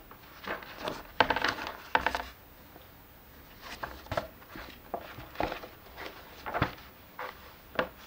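Paper pages of a book being turned by hand: a quick run of rustling page flips about a second in, then single page turns every second or so.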